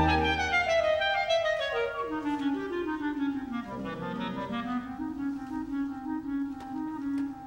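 Solo clarinet playing alone as the wind ensemble's low chord ends: a descending run of notes, then a long held low note that fades near the end.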